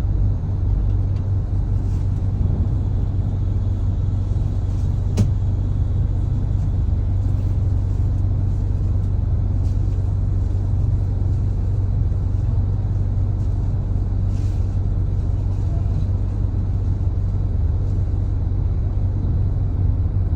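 Steady low rumble of a cargo ship's engines as it manoeuvres in to dock, with a single sharp click about five seconds in.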